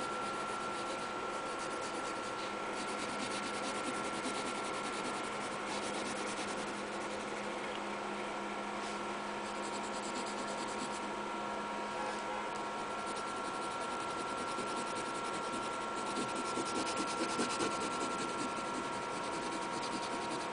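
Pencil scratching and rubbing on sketchbook paper in short repeated strokes, a little busier near the end, over a steady electrical hum.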